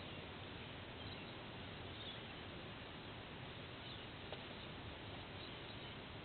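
Faint, scattered high bird chirps over a steady outdoor background hiss, with a single sharp click about four seconds in.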